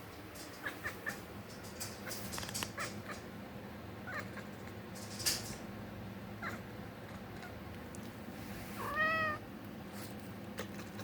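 Domestic cat chattering at birds: scattered short chirps and clicks, then one clear meow about nine seconds in. A brief noisy burst comes about five seconds in.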